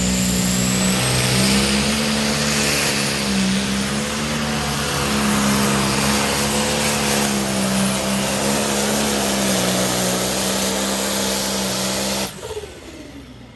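John Deere pulling tractor's diesel engine running flat out under load as it drags a weight-transfer sled, a loud steady drone that wavers slightly in pitch. About 12 seconds in it cuts off abruptly as the throttle is shut at the end of the pull.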